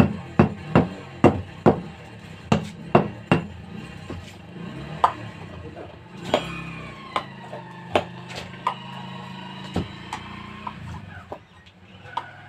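Sharp knocks, quick and regular for the first few seconds and then scattered, as a tyre lever is worked around the bead of a tubeless motorcycle tyre on its rim.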